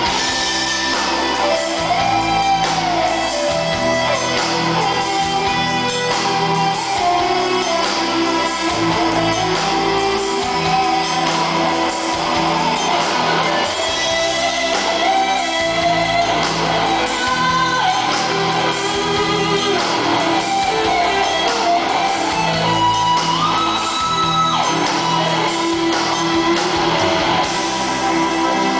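Live rock band playing loudly: electric guitars over bass and drums, with a lead line of long held notes that bend and slide in pitch.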